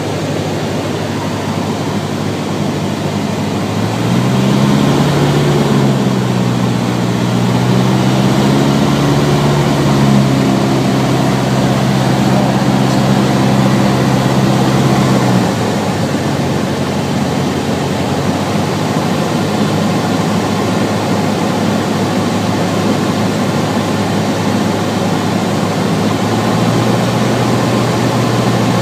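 Cabin noise of a Cessna 150 in flight: the four-cylinder Continental O-200 engine and propeller running steadily with airflow noise. A deeper droning tone slides into pitch about four seconds in, holds steady, and stops abruptly about fifteen seconds in; a fainter one returns near the end.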